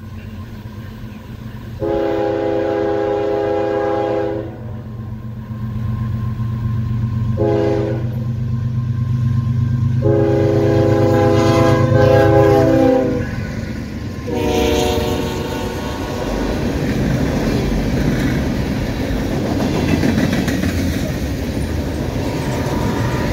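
Norfolk Southern GE ES44AC diesel locomotive sounding its horn for a grade crossing in four blasts, long, short, long and shorter, with the engine's low drone beneath. It then passes close by, and the wheels of the locomotives and tank cars make a steady clatter on the rails.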